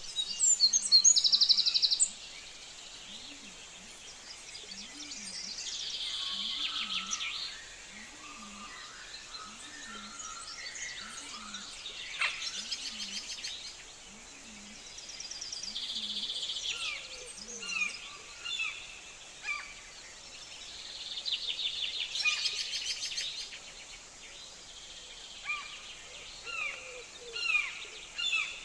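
Outdoor ambience of birds calling and chirping, with several loud, buzzy trills that come and go every few seconds, and a low note repeating about once a second for the first two-thirds.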